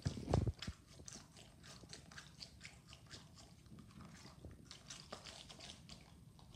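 Water-filled balloon stress ball with confetti inside being squeezed and kneaded in the hand: faint, irregular rubbery crackles and squishes, with one louder thump just after the start.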